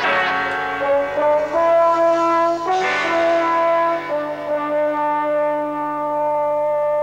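Instrumental opening theme music led by brass, moving through a run of held chords, with a brighter swell about three seconds in.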